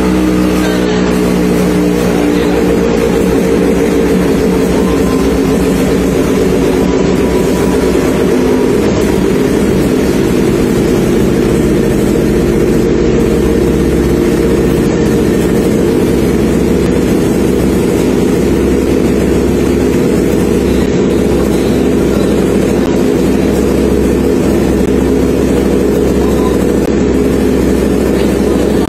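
Yamaha RX100's two-stroke single-cylinder engine running on a motorcycle chassis dyno with an aftermarket Allied CDI fitted, in a power test. It runs loud and steady, its note turning rougher and fuller about two seconds in.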